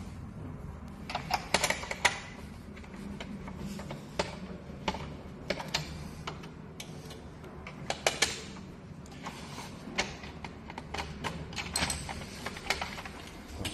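Irregular clicks and knocks of hand tools and plastic parts as a treadmill's motor cover is worked off, over a steady low hum.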